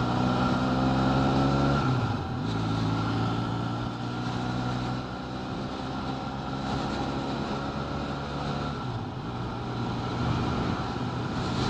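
Benelli 502C's parallel-twin engine riding along the road. Its pitch climbs for about two seconds, drops at a gear change, then runs fairly steady, dipping again a couple of seconds before the end.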